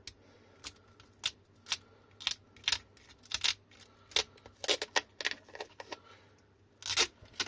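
Tape being pulled and torn off an 18650 lithium-ion cell pack: an irregular run of short, sharp crackles and clicks.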